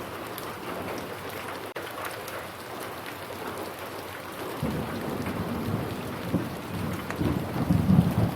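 Steady rain with pattering drops. A little past halfway a low rumble of thunder comes in and swells, loudest near the end.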